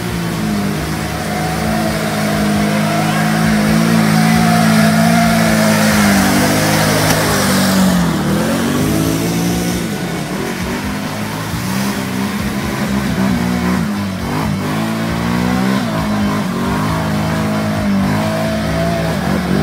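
Quad bike (ATV) engines revving up and down while driving through deep muddy water, with the rush and splash of water thrown by the wheels. The engine pitch drops and climbs again several times.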